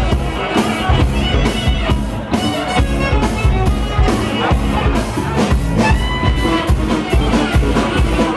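Live rock band playing: electric guitars, bass and drums keep a steady beat, about two drum strokes a second, with a saxophone and a trumpet in the line-up.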